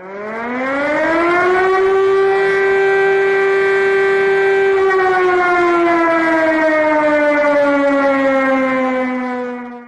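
Air-raid siren sounding one cycle: the tone winds up in pitch over about a second and a half, holds steady, then slowly slides down through the second half and cuts off at the end.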